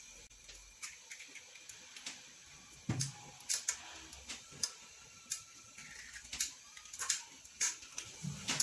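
Eggs being cracked and separated by hand over a plastic bowl: scattered light clicks and taps of eggshell, a few seconds apart.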